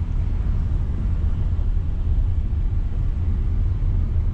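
Steady low rumble of a Renault car's engine and tyres on the road, heard from inside the cabin while driving along a highway at speed.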